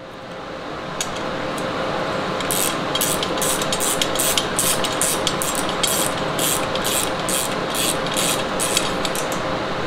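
Ratchet wrench clicking in quick back-and-forth strokes, about two a second, as a nut is run down on the steel frame, over a steady hum.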